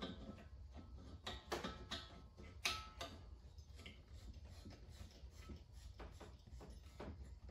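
Faint, scattered clicks and light ticks of a propane hose's threaded fitting being turned by hand onto a brass regulator inlet, over a low steady hum.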